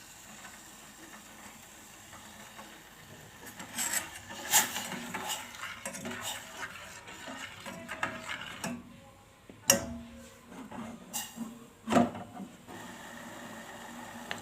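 Kitchen utensils and dishes knocking and clinking, with several sharp clinks between stretches of handling and stirring noise, over a steady low hum.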